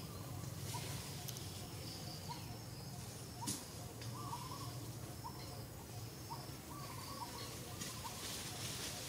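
Outdoor ambience: a steady low hum with short high chirps every second or so, and one sharp click about three and a half seconds in.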